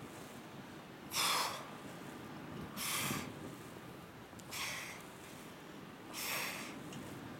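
A woman's sharp, hissing exhales, one with each crunch as she curls up, four times at a slow, even pace of about one every second and a half to two seconds.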